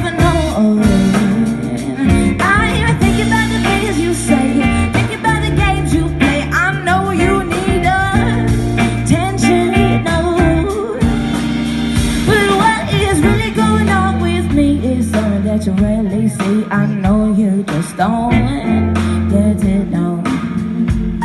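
Pop song playing: singing over backing instruments with sustained bass notes, at a steady loud level.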